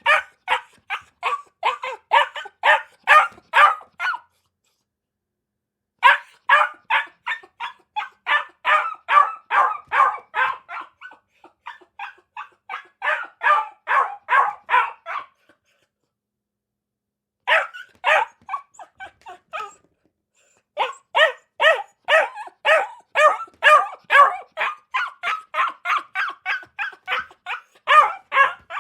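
A dog barking in rapid runs of about three barks a second. The runs are broken by a few pauses of dead silence.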